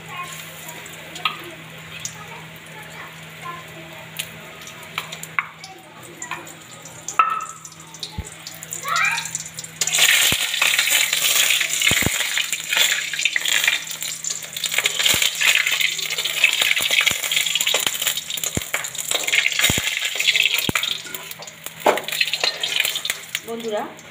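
Egg-and-besan kofta batter frying in hot oil in a kadai: a light sizzle with scattered clicks and knocks at first, then a loud, steady sizzle that starts abruptly about ten seconds in and eases off near the end.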